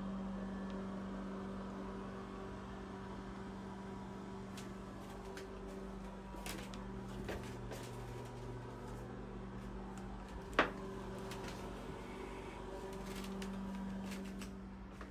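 Steady low hum with a few faint clicks, and one sharp click about ten and a half seconds in.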